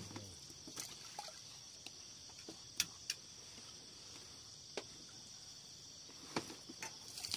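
Steady high-pitched chorus of crickets and other night insects, with a few short sharp clicks scattered through it.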